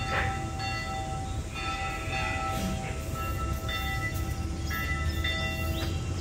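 Church bells ringing: several bells struck one after another, each tone ringing on steadily, over a low steady rumble.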